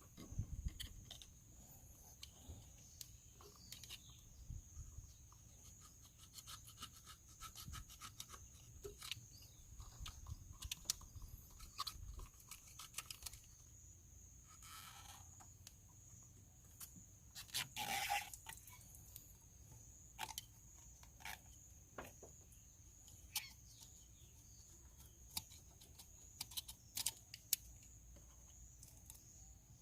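Scattered light clicks, clinks and knocks of hand tools and parts being handled during thermostat replacement on a Suzuki Jimny engine, with a brief busier clatter about two-thirds of the way in. A faint steady high-pitched tone sits underneath.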